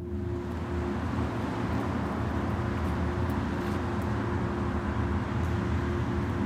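Steady city traffic rumble with a low hum, fading up over about the first second.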